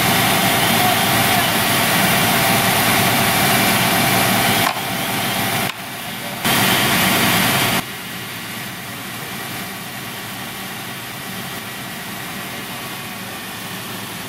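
Fire truck engine running steadily on scene, a loud, even mechanical drone with a faint hum in it. The level drops suddenly about five seconds in, comes back briefly, and drops again just before the eight-second mark to a lower steady level.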